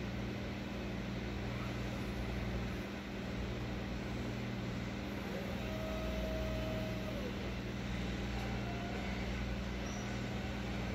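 STILL electric reach truck running in a warehouse aisle: a steady low hum, with a brief higher whine that starts about five and a half seconds in and lasts under two seconds.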